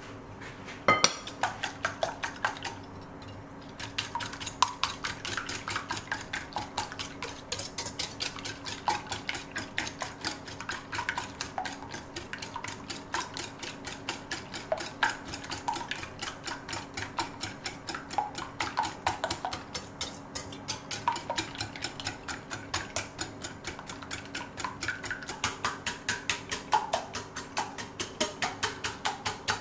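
Wire balloon whisk beating eggs in a glass bowl, the wires clicking against the glass in a fast, even rhythm of about four strokes a second, with a short pause about three seconds in.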